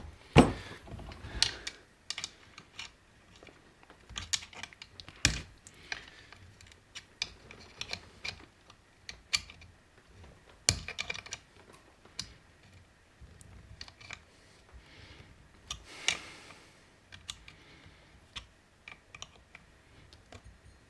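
Irregular light clicks and taps of a wrench, screws and chainsaw parts being handled and fitted, with a few sharper knocks along the way.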